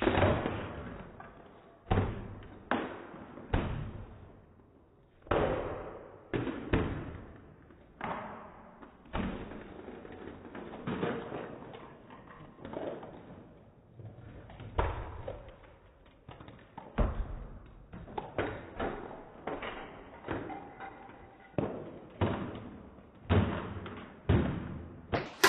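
Marbles running down a marble run: an irregular string of clacks, knocks and rattles as they drop and strike the track pieces, with short pauses between bursts.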